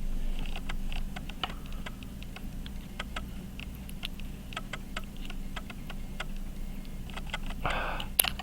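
Small, irregular metallic clicks and taps of hand tools working on a pocket watch movement as it is taken apart, with one sharper click near the end.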